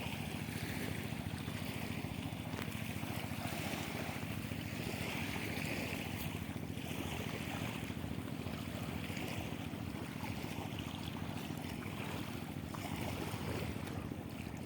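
Diesel 'shallow' engine of a river boat running steadily at a fast, even chug, with wind and river water hissing over it.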